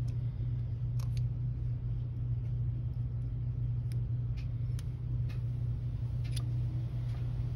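Steady low background hum, with a few faint light clicks of small parts being handled on a work mat.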